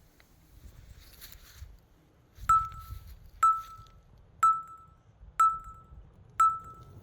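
Five short, clear pings, evenly spaced about a second apart, each the same high note ringing off quickly.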